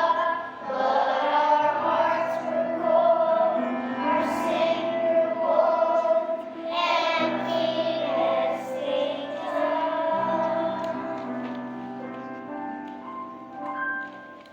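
Children's choir singing a song with instrumental accompaniment that holds steady low notes. The song dies away near the end.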